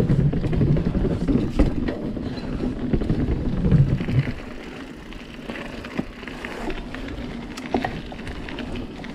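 Santa Cruz Hightower 29er mountain bike riding fast over a gravel forest road and onto dirt singletrack: tyre rumble and wind buffeting the camera microphone, with scattered clicks and rattles from the bike. The wind rumble drops off about four seconds in, leaving quieter tyre noise and the odd knock.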